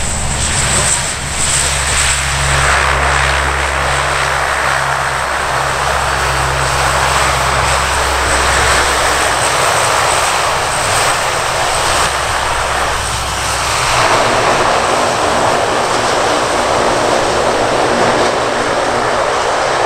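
C-130H Hercules's four Allison T56 turboprop engines running as the aircraft taxis past: a steady high turbine whine over a deep propeller drone and a broad rushing roar. The deepest drone drops away about halfway through as the aircraft moves on.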